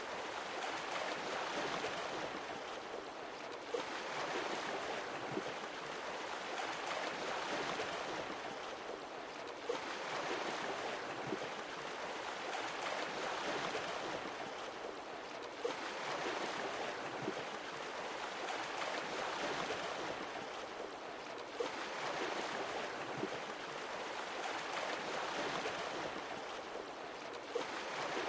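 Sea waves washing ashore, a swell about every six seconds, each rising and easing back.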